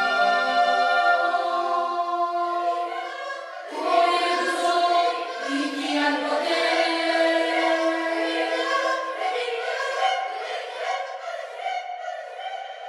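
Children's choir singing sustained chords in several parts, with a fresh, busier entry of voices about four seconds in; the sound thins out and gets quieter near the end.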